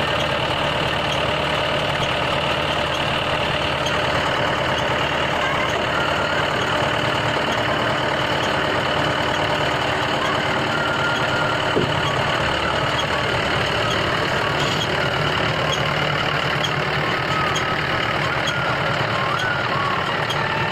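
Tractor engine running steadily while powering a round baler, with faint regular ticking from the machinery and a single click just before the midpoint.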